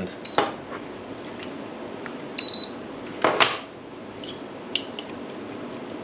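A few short, high electronic beeps from the smart lock gear, mixed with light clicks and rubbing as the lock cylinder and its hub are handled on a desk.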